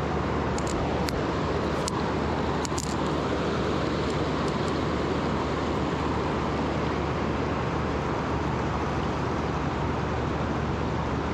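Steady rush of fast-flowing river water over a rocky riffle, with a few faint clicks in the first few seconds.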